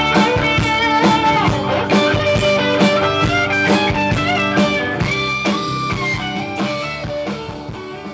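Rock band playing live: an electric guitar lead with bent notes over a drum kit and a second guitar. The music fades out near the end.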